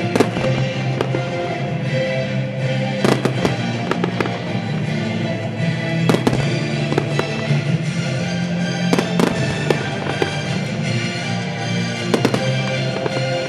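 Aerial firework shells bursting overhead: sharp bangs, often two close together, about every three seconds. Music plays steadily underneath.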